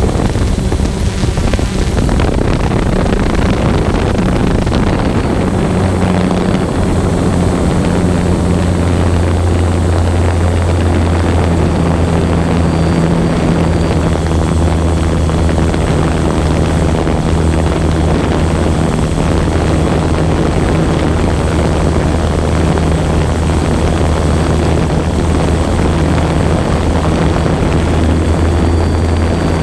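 Small multirotor drone's propellers and motors humming steadily in flight, a constant low drone over an even hiss.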